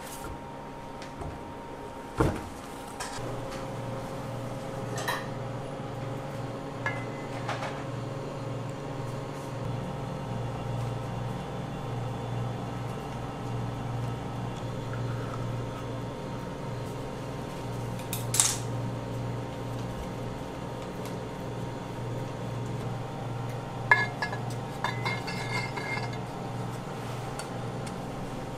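Scattered clinks and knocks of utensils and metal kitchenware, including a sharp clink a little past the middle and a quick run of clinks near the end, over a steady low hum that sets in a few seconds in.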